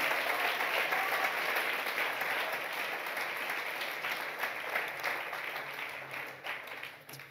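Congregation applauding, the clapping slowly dying away and stopping near the end.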